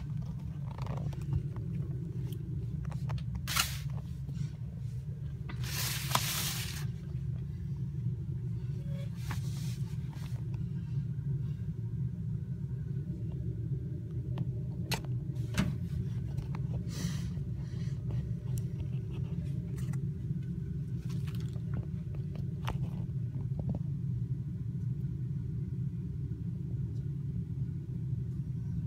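A cat nibbling at a pot of cat grass: a few scattered crunches and clicks and a short rustle about six seconds in, over a steady low rumble.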